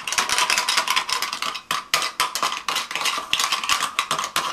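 Toy pots, pans and utensils clattering and clinking in quick, irregular knocks as children play at cooking.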